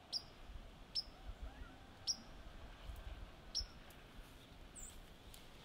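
A small songbird giving four sharp chip notes spread over about three and a half seconds, each a quick downward flick in pitch, with a fainter higher call a second later.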